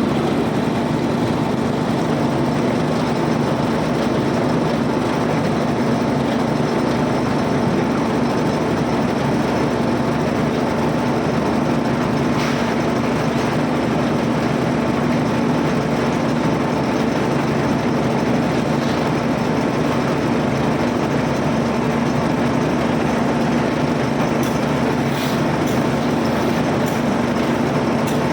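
A machine engine running steadily with an even hum that does not change.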